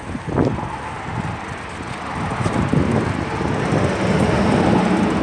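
Heavy truck driving past on a road, its engine and tyre noise growing louder over the second half.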